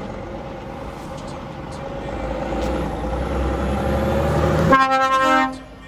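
DAF semi-truck's diesel engine growing louder as the truck pulls out and approaches, then a blast of its air horn about a second long near the end.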